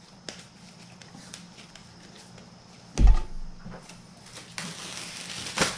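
Handling pizza dough on a marble counter: a thud about three seconds in as a ball of dough is set down, then the rustle of a thin plastic bag being pulled from a roll, with a sharp crack near the end.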